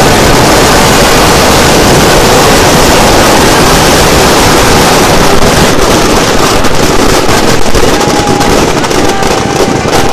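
Firecrackers packed inside a burning Ravan effigy going off in a dense, very loud barrage that merges into one continuous roar. From about halfway through, separate sharp cracks stand out.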